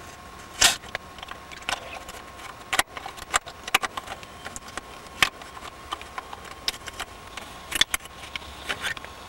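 Metal radiator cap being twisted and worked off its filler neck by hand: a run of irregular small metallic clicks and rattles.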